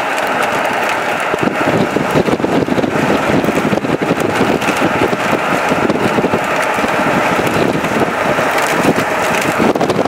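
Wind rushing and buffeting on the microphone over the road noise of a car being driven.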